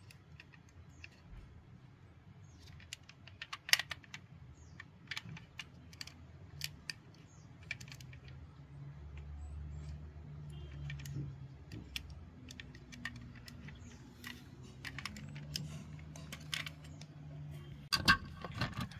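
Irregular light clicks and clacks of small toy cars being handled, with a faint low hum through the middle few seconds.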